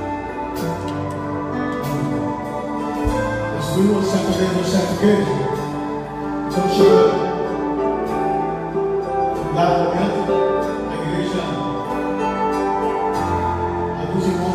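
Live worship band playing an instrumental passage: held keyboard chords over electric bass and electric guitar.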